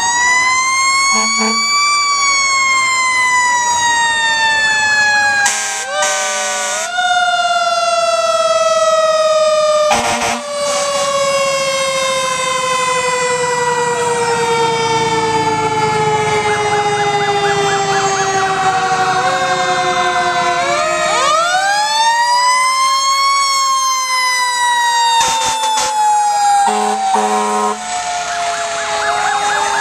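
Fire engine siren wailing: it winds up to its top pitch, then slowly sinks for many seconds before winding up again, twice over. A few short, sharp sounds cut in over it.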